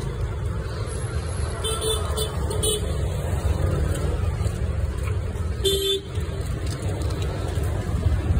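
Steady road traffic noise, with a vehicle horn honking a quick run of short toots about two seconds in and one more short honk about six seconds in.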